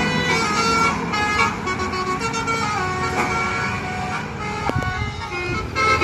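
A bus's telolet horn playing a rapid tune of short notes that step up and down in pitch, over the low hum of a bus engine.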